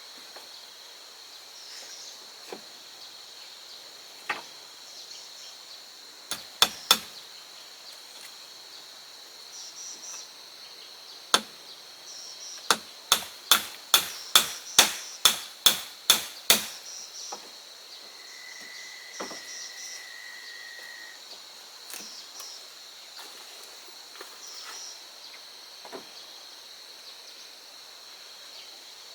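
Hammer blows on wood: a few separate strikes, then a quick even run of about a dozen blows at roughly two and a half a second, as when driving nails into a wooden wall.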